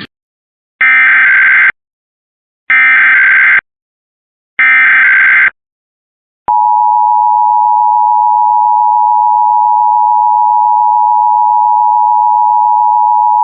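Emergency Alert System SAME header: three short bursts of warbling digital data tones, about a second apart. About six and a half seconds in, the steady two-tone EAS attention signal starts and holds. Together they mark the opening of an alert, here a monthly test.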